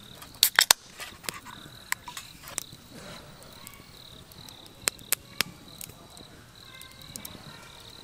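Aluminium beer can's pull tab cracked open about half a second in, a quick cluster of sharp clicks and a hiss. A wood campfire crackles with scattered pops, and crickets chirp steadily underneath.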